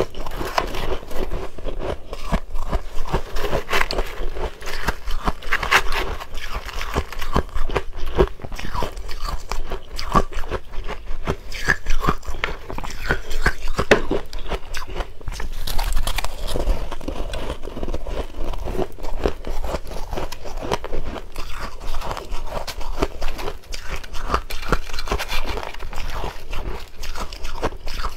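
Close-miked crunching and chewing of ice dusted with matcha powder: a dense run of crisp, crackling crunches as the ice breaks between the teeth.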